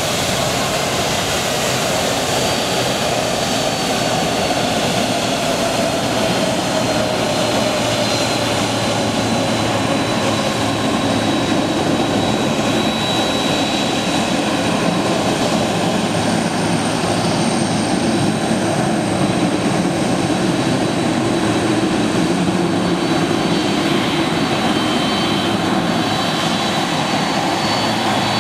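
Boeing 767 jet engines running as the airliner rolls out after landing: a steady rush with a high whine, and a lower tone sliding down in pitch over the first ten seconds or so.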